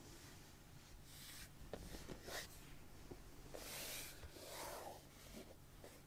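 Faint rustling and scratching of kittens' paws and claws on cloth as they clamber over a lap, in several short patches with a few small clicks.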